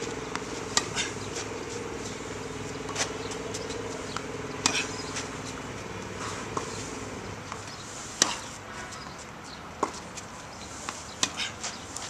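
Tennis balls struck by racquets in a rally: sharp pops every two to three seconds, some loud and some fainter, over a steady low hum that fades out about halfway.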